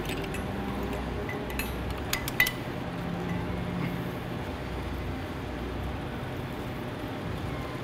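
A few light metallic clinks about two seconds in as a steel pipe fit-up clamp is handled and positioned on the pipe, over a steady low background hum.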